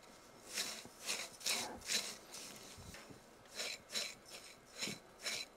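Silicone spatula scraping and stirring a dry, crumbly feuilletine mixture in a glass bowl: a run of short rasping strokes, a brief pause midway, then quicker strokes.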